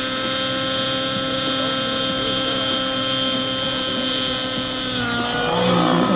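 T-REX 700 nitro RC helicopter's two-stroke glow engine and rotors running at a steady high head speed while hovering low over the ground. About five seconds in the engine note dips slightly and then rises as the helicopter pulls up and climbs away.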